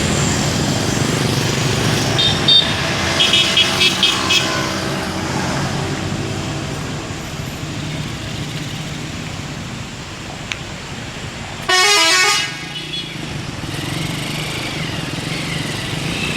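Buses passing in convoy, engines running, sounding telolet horns: a few short high toots and a quick run of about five toots between two and four and a half seconds in, then one loud horn blast about twelve seconds in.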